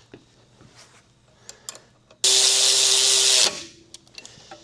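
A power tool runs in one burst of about a second and a half, starting about two seconds in and stopping abruptly, running down the bolts that mount a new ball joint to the upper wishbone. There are light taps of tools before it.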